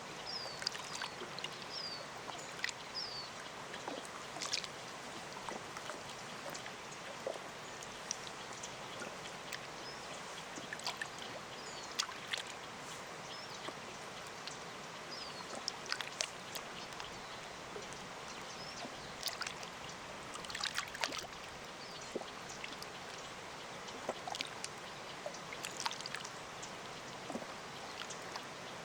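Small lake waves lapping at the shore in many short splashes over a steady hiss of distant falling water. A few brief bird chirps come in the first few seconds.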